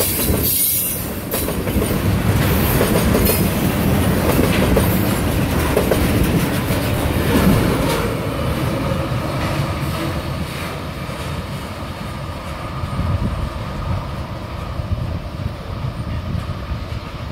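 Freight train of tank cars rolling past, wheels clacking over the rail joints with a heavy rumble. It grows quieter after about eight seconds as the train draws away.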